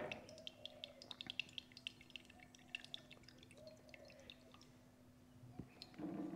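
Soy sauce being poured from a bottle into a cup: a faint run of quick drips and small splashes for the first four seconds or so, over a steady low hum.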